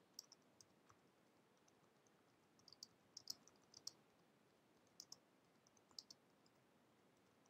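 Faint typing on a computer keyboard: light key clicks in short, irregular clusters with pauses between them.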